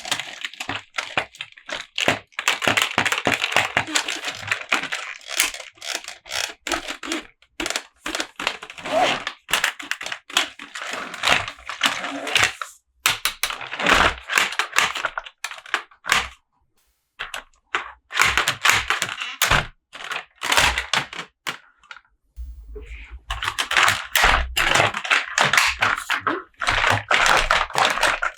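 Toy unboxing handling sounds: a rapid, irregular run of clicks, taps and rustling as a plastic toy monster truck and its packaging are handled, with a brief pause about midway.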